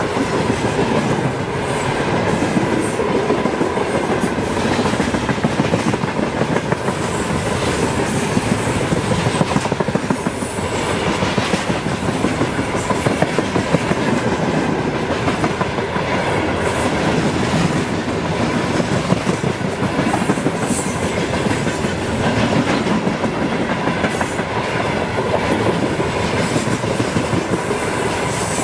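Freight train of open gondola wagons rolling past close by, the wheels clattering steadily over the rail joints, with a faint steady whine above the rumble. The end of the train reaches the listener near the end.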